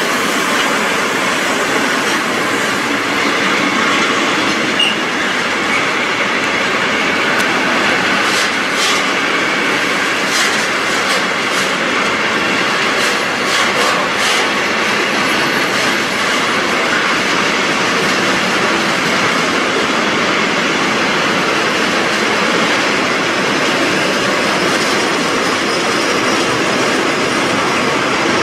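Freight train's container and tank wagons rolling past close by: a steady noise of wheels on rails, with a run of sharp clicks from about eight to fourteen seconds in.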